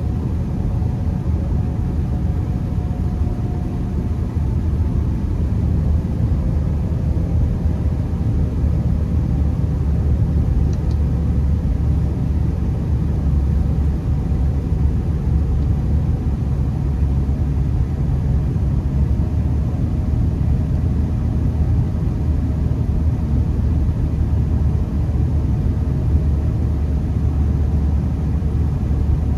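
Honda Accord driving on snow-covered roads, heard from inside the cabin: a steady low rumble of tyres and engine, with a faint steady hum above it.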